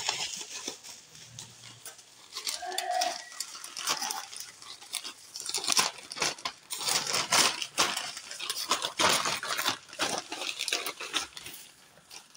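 Irregular rustling, crinkling and small clicks and knocks of a hand-held ball pump and its packaging being handled and searched through for the inflation needle.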